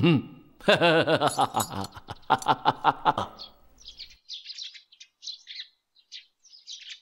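A man's voice in rhythmic pulses for the first three seconds, then small birds chirping in short, separate high calls.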